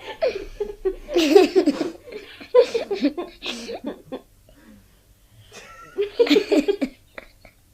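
Children laughing in three bursts: from just after the start to about two seconds in, again around three seconds, and briefly near the end.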